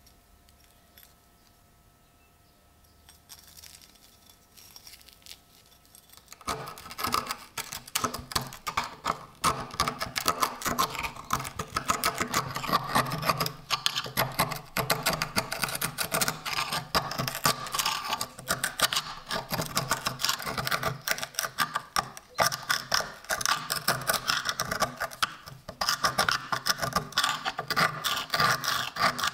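Steel chisel scraping and chipping thick rust scale off a heavily corroded iron axe head on a wooden board, a dense run of rapid scratchy scrapes and clicks that starts about six seconds in. Before that, only faint clicks of the axe head being handled.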